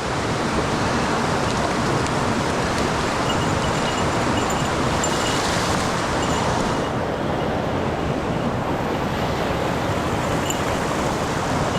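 Rushing water of a mountain stream running high after a typhoon: a steady, loud rush with no let-up. The hiss in it thins a little about seven seconds in.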